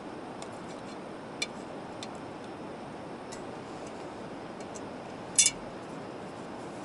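Spoon clinking against a metal soup pot a few times as soup is eaten from it, the loudest a quick double clink about five seconds in, over a steady hiss.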